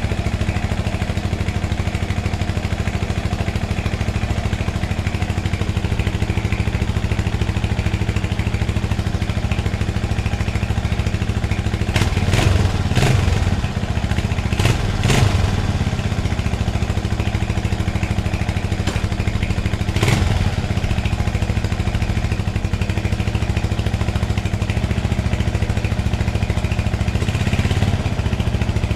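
1980 Honda XL250S's single-cylinder four-stroke engine running steadily, with a few brief louder moments about twelve, fifteen and twenty seconds in. The timing chain and tensioner are newly replaced, so there is no chain rattle.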